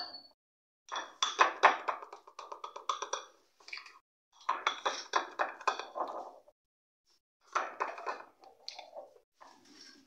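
A metal spoon stirring cocoa powder into cake batter in a small glass bowl, clinking and scraping against the glass in three bouts of quick strokes with short pauses between.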